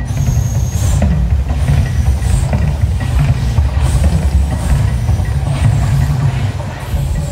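Erupting man-made volcano show: a deep, continuous rumble with repeated whooshing surges as gas flame jets fire from the volcano and across the lagoon.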